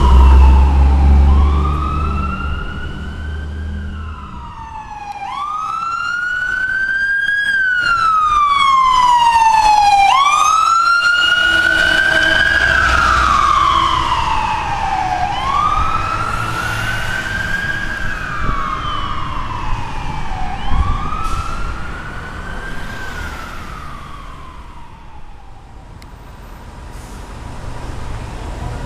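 Ambulance's electronic siren on a wail, rising and falling about every three seconds, growing louder as the ambulance approaches and passes, then fading. A heavy low vehicle rumble fills the first few seconds.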